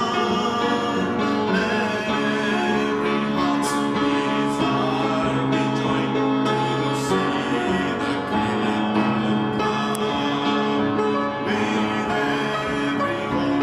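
Praise-and-worship music played by a band with keyboard, with singing.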